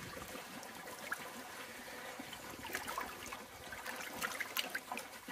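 Water sloshing and trickling softly in a shallow plastic koi bowl as a hand moves a koi through it, with a few small splashes in the second half.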